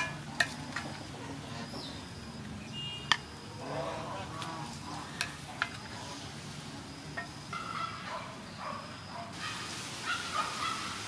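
A spatula knocking and scraping against a wok as stir-fried bamboo shoots are tossed, with a few sharp clicks scattered through. Fowl call a few times in the background.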